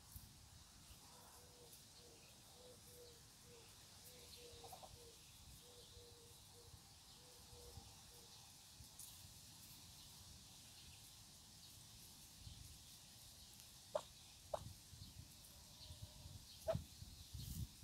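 Near silence with faint outdoor ambience. A soft, evenly repeated note runs through the first half, and a few short, sharp peeps from week-old Muscovy ducklings come in the last few seconds.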